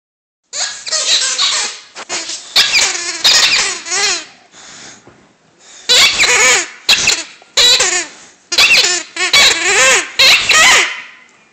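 A dog chewing a rubber squeaky toy, squeezing out a run of wavering squeaks, then after a short pause about four seconds in, another run of squeaks.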